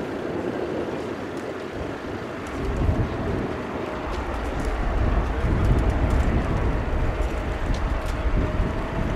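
Airbus A350's Rolls-Royce Trent XWB jet engines running on the runway, a steady distant noise with a faint whine. From about two and a half seconds in, wind buffets the microphone with a low rumble that grows louder.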